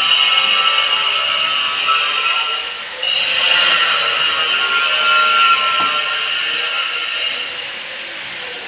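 Electric power tool cutting into wood with a steady high motor whine. The whine dips briefly about three seconds in, comes back, then eases off near the end.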